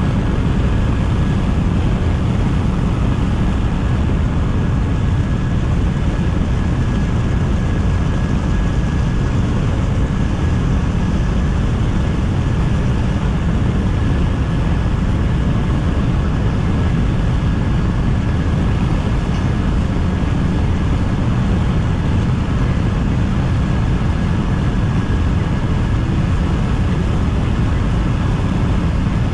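Steady road and wind noise of a car driving at speed, heard inside its cabin, with a faint steady high whine.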